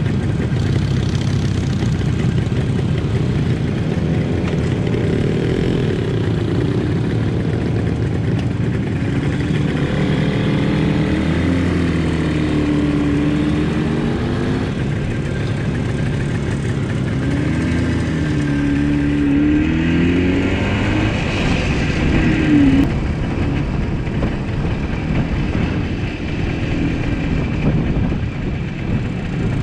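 Motor scooter engines running while riding along, with the steady rush of wind over the microphone. The engine note swells and falls back twice, about ten and about eighteen seconds in.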